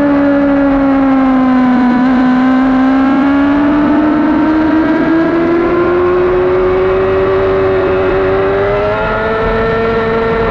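2012 Yamaha R6's 600 cc inline-four engine running hard under racing load. Its pitch dips briefly about two seconds in, then climbs steadily as the bike accelerates, with wind rushing over the microphone underneath.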